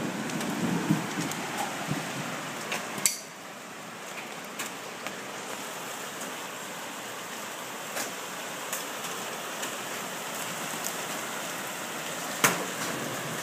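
Hailstorm: a steady hiss of hail and rain falling, with scattered sharp clicks and knocks of hailstones striking hard surfaces. A louder knock comes about three seconds in, after which the hiss is a little quieter.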